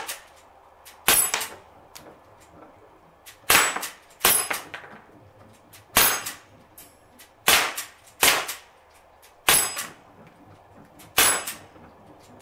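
Sig Sauer MPX .177 semi-automatic pellet pistol, running on a bulk-fill high-pressure-air tank, firing about nine single shots, one every second or two. Each sharp pop comes with the metallic clang of the pellet striking the steel paddles of a resetting spinner target.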